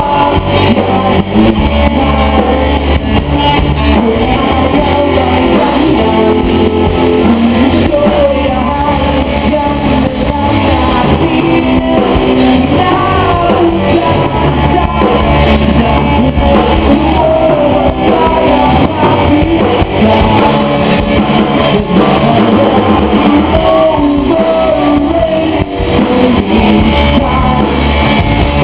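Live rock band playing loudly, with electric guitar and a sung lead vocal.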